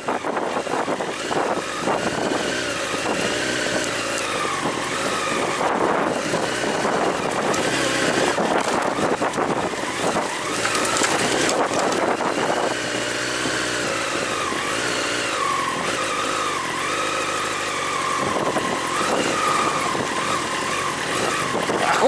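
Honda CBR929RR Fireblade's inline-four engine running as the sport bike is ridden, its pitch rising and falling with the throttle throughout.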